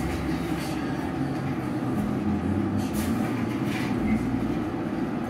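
Steady roar of a gas-fired glory hole burner and its blower in a glassblowing studio, a continuous low rumble as a gather of glass is reheated in the flame.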